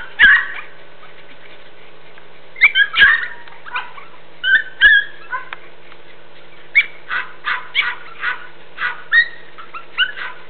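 Border Jack and Jack Russell terrier puppies yipping and barking in play: a few scattered high yips at first, then a quick run of short yips, two or three a second, in the second half.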